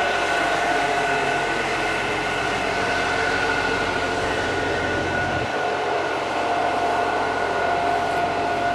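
Steady, loud machine noise with a constant whine that does not change in level or pitch.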